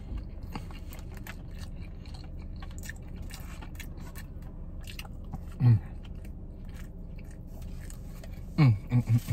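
A person biting and chewing a crispy fried chicken sandwich, with many small crisp crunches. Short falling 'mm' hums of enjoyment come about five and a half seconds in and again near the end.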